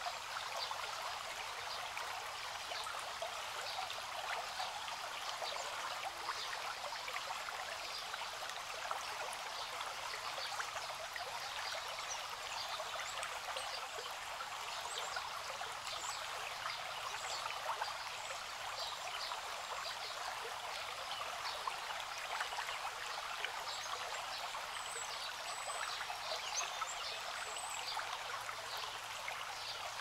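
Shallow creek running steadily, a constant trickle of many small splashes.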